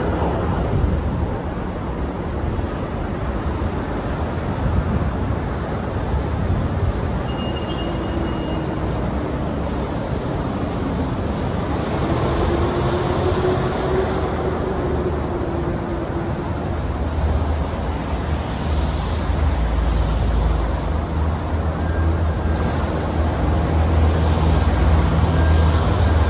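Freight train of tank cars and boxcars rolling slowly and coming to a halt: a steady low rumble with a faint wavering tone in the middle, the low rumble growing heavier and a little louder in the second half.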